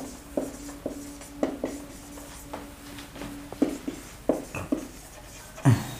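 Marker pen writing on a whiteboard: a run of short, irregular strokes and taps as letters are drawn. A faint steady tone sounds until about three and a half seconds in.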